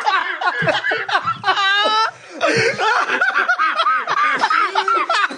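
Men laughing and snickering together.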